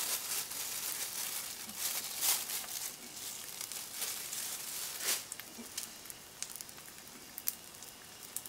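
Egg-battered, floured pork neck frying in plenty of oil in a pan: a steady sizzle with scattered crackles and a few louder pops, easing off after about five seconds.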